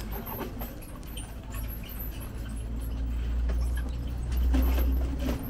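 City street ambience: a steady low rumble that swells about four and a half seconds in, with scattered light clicks and taps and faint high squeaks or chirps.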